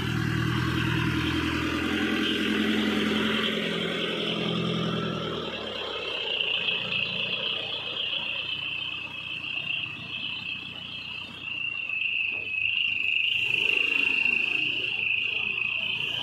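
A truck engine running steadily, fading away after about five seconds, under a steady high-pitched drone of insects that carries on after the engine fades.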